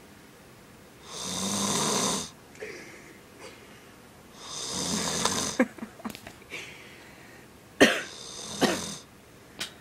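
Sleeping man snoring: two long snores about a second and four and a half seconds in, then a run of short, sharp snorts and clicks, the loudest near the end.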